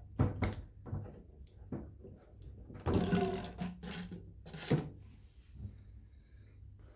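Short plastic clicks and knocks from handling a washing machine's drain hose and a catch bottle, with a denser clatter about three seconds in.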